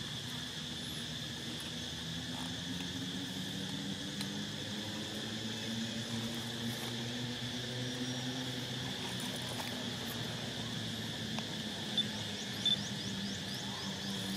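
Steady high-pitched drone of insects, with a low steady hum underneath and two short ticks near the end.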